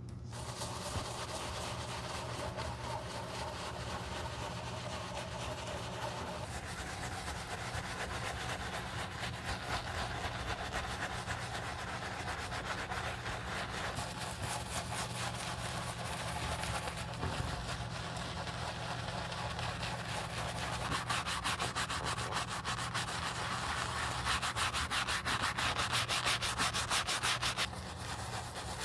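A bristle brush scrubbing foamy cleaner into a leather loafer in rapid back-and-forth strokes, a wet, bristly rasp. The scrubbing grows louder in the last several seconds and eases off shortly before the end.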